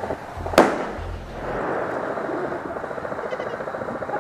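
AK-style airsoft electric rifle firing full-auto bursts, a fast, even mechanical rattle. One sharp, loud crack about half a second in is the loudest sound.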